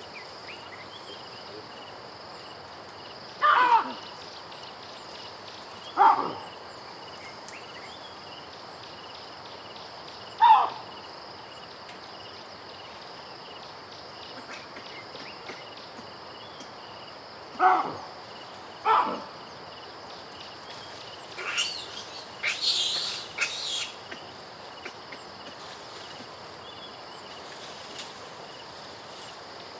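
Baboon calling: single loud calls spaced several seconds apart, then a run of higher screams a little past the middle. Birds chirp steadily in the background.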